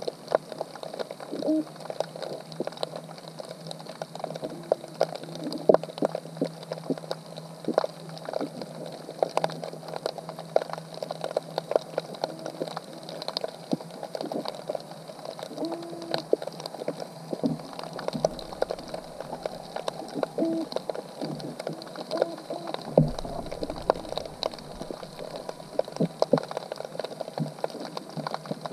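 Underwater sound at a crab trap, heard through a GoPro housing: irregular clicks and crackles, with short low hooting calls every few seconds. A faint steady hum runs through the first half.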